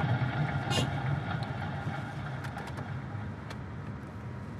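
Car driving, its engine and road noise heard from inside the cabin as a steady low rumble that grows gradually quieter. A short sharp click about a second in.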